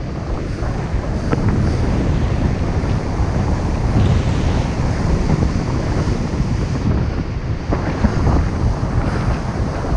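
Wind buffeting a camera microphone during paraglider flight: a loud, steady, deep rush that swells and eases.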